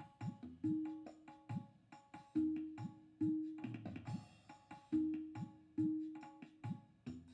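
Background music led by hand drums: a steady, repeating pattern of pitched drum strokes over deep strokes that bend in pitch.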